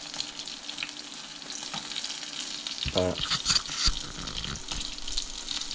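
Breaded bluegill sizzling in hot frying oil, with many small pops and crackles; the fish are nearly done.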